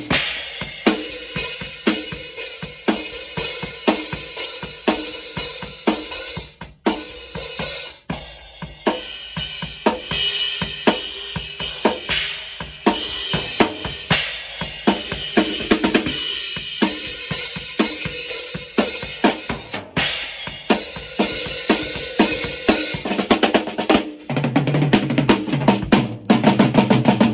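Acoustic drum kit played with sticks: a steady groove of snare, bass drum and cymbals. About 24 seconds in it breaks into a fast run of strokes around the kit.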